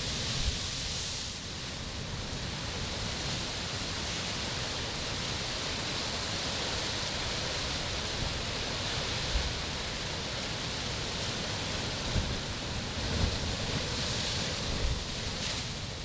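Ocean surf crashing over rocks and into tide pools: a steady rush of churning, foaming water, with a few short low thumps in the second half.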